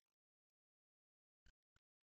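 Near silence, broken by two faint short clicks about one and a half seconds in.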